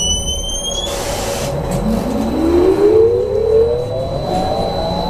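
Electric traction drive of a BKM 43300D trolleybus whining as it pulls away, the whine rising smoothly in pitch as the vehicle accelerates. A high steady tone ends just under a second in, followed by a brief hiss.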